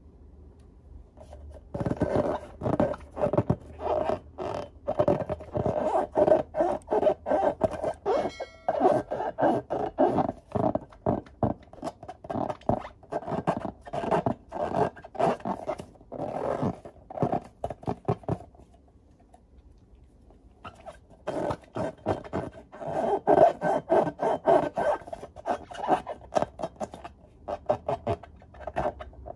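Hands rubbing and squeezing filled latex balloons: a quick run of rubbing strokes on the rubber, starting about two seconds in. It stops for about two seconds past the middle, then starts again.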